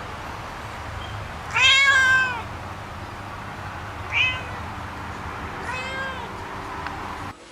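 A cat meowing three times: a long, loud meow, then a short one, then another, over a steady low hum. The sound cuts off abruptly near the end.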